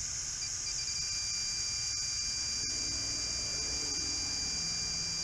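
Steady high-pitched hiss of pressurised nitrogen bleeding out of a refrigeration system through a valve, over a steady low hum.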